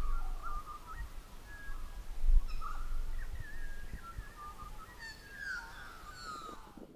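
Several wild birds calling and warbling, with low wind rumbles on the microphone through the first half.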